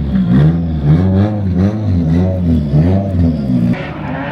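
Drift car engine revving hard, its pitch rising and falling about twice a second as the throttle is worked. The revving stops suddenly near the end, leaving a lower, steadier engine note.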